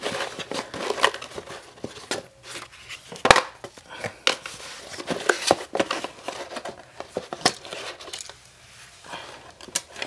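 Headphones being pulled out of their fitted packaging tray: irregular plastic and cardboard rustling and clicking, with a sharp knock about three seconds in.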